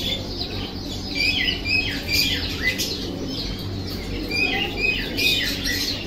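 Many small caged birds chirping and squawking over one another in quick, short, falling calls, over a steady low hum.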